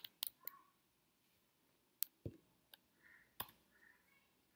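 A handful of faint, widely spaced computer keyboard key clicks, as a few keys are typed in a code editor.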